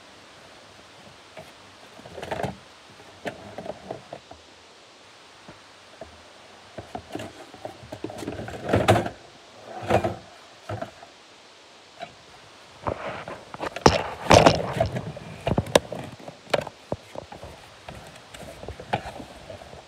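Rummaging in a wooden cupboard: irregular knocks and bumps with some rustling, the loudest cluster of bumps about two-thirds of the way through.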